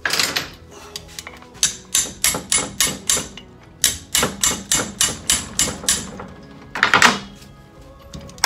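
Hammer tapping on metal brake parts: a loud strike at the start, a run of quick taps about three a second, then a louder cluster of blows near the end, each ringing briefly.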